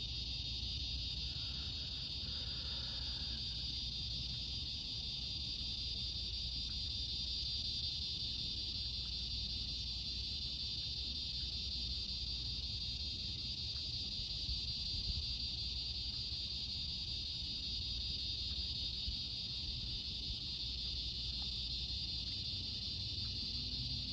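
Steady, unbroken high-pitched chorus of evening insects, with a low steady rumble underneath.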